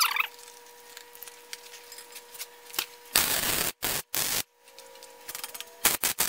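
MIG welding arc crackling in short stop-start bursts, tack-welding and filling gaps on a steel frame: two bursts of under a second each about three seconds in, then several quick short bursts near the end.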